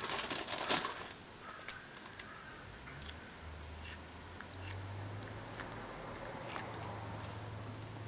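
A Russian tortoise biting and chewing raw bean sprouts: a crisp crunch in the first second, then scattered small snaps and clicks as it works the sprout.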